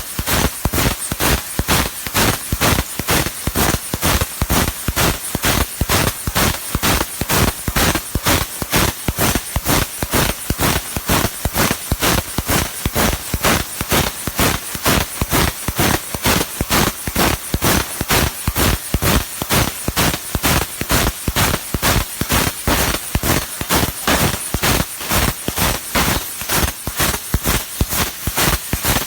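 20 kW fiber laser cutting 25 mm carbon steel plate: a loud, unbroken crackle of sharp pops, several a second, over a hiss.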